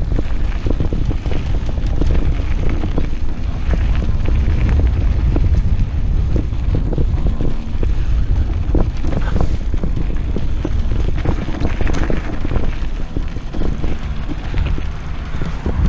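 Wind rushing over the microphone of a moving electric mountain bike, with many short knocks and rattles as it rides over a rough dirt track.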